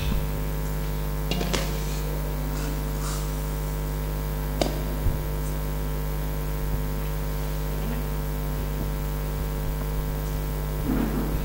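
Steady electrical mains hum through the microphone and sound system, with a few faint clicks and knocks.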